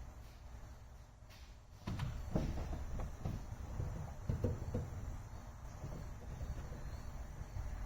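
Parts of a car's gear shifter being handled: irregular knocks and rubbing start about two seconds in as the plastic piece is pulled back out and the drill bit pinning the shifter is taken out.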